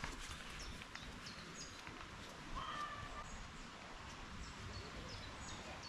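Faint woodland birdsong: several birds giving short high chirps, with a clearer whistled phrase about two and a half seconds in, over a soft steady hiss of outdoor air.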